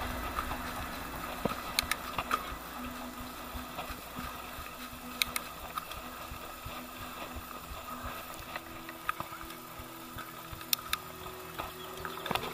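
Mountain bike rolling along a trail: steady tyre and drivetrain noise with scattered clicks, knocks and rattles as the bike goes over bumps.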